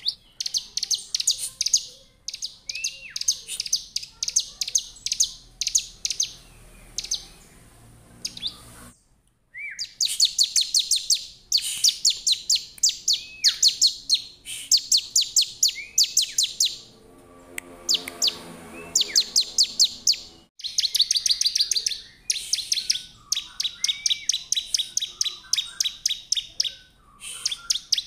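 Bar-winged prinia (ciblek) in full song: bursts of rapid, high, dry chattering notes repeated again and again, broken now and then by a short slurred call, with a brief silence about nine seconds in.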